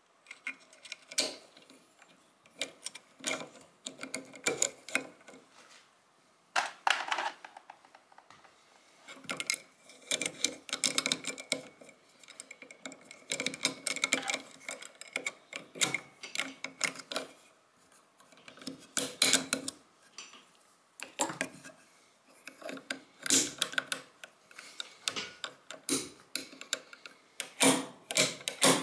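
Small steel parts of a Stgw. 57 trigger mechanism being fitted into the trigger housing by hand: irregular metallic clicks, taps and scrapes.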